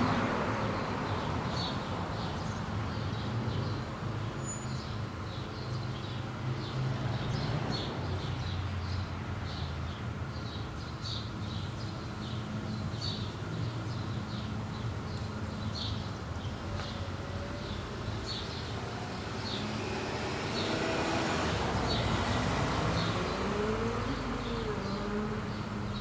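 Honey bee swarm buzzing as a steady low hum, with short high chirps repeating about twice a second. About three-quarters of the way through, a low rumble with rising and falling tones joins in.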